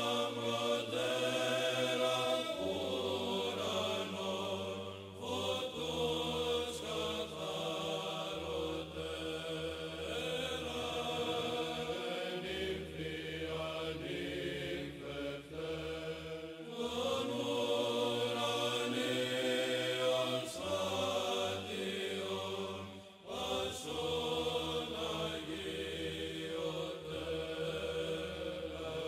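Background music of slow chanting voices over a low held drone note that shifts to a new pitch every few seconds.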